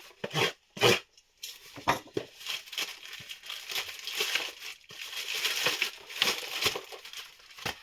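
A small package being unwrapped by hand: a few sharp knocks in the first second, then several seconds of crinkling and rustling of plastic wrapping.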